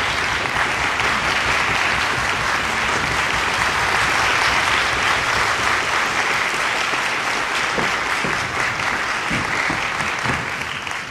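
Audience applauding steadily in a concert hall, beginning to die away near the end.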